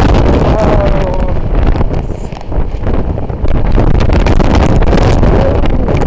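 Strong storm wind buffeting the microphone, loud and gusty, easing for a moment about two seconds in before picking up again.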